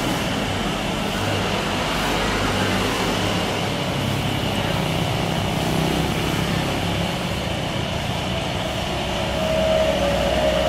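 Jet engines of a Batik Air Airbus A320 on its landing rollout: a steady rushing noise with a high whine over a low rumble. Near the end a tone rises and the sound grows a little louder.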